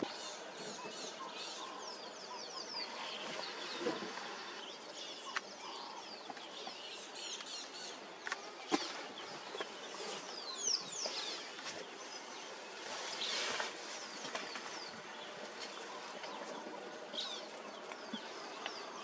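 Birds calling in the bush: many short, high chirps that fall in pitch, scattered throughout over a steady background hiss, with a few faint clicks.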